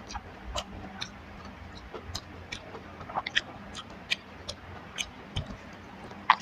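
Close-up mouth sounds of a person eating rice and curry: wet chewing and sharp lip-smacking clicks, irregular, one or two a second, with the sharpest click near the end.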